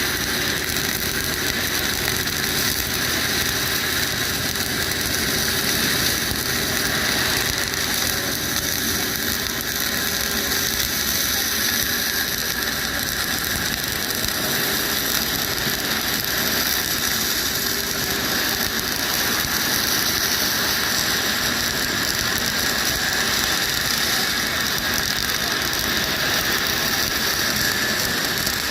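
Flux-cored arc welding with 1.2 mm wire under 80% argon / 20% CO2 shielding gas: the arc gives a steady, dense crackle as it lays a fillet weld, unbroken throughout.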